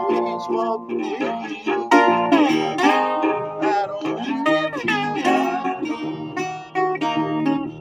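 Resonator guitar played fingerstyle with a slide: plucked notes ring out over a steady bass, and the melody notes glide up and down in pitch between picks.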